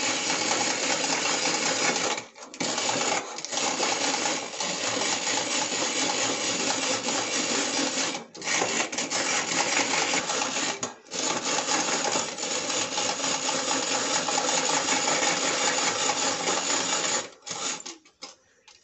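Hand-cranked rotary egg beater whirring and rattling loudly as its gears turn and the beaters whisk batter in a glass bowl. It breaks off briefly a few times and stops near the end.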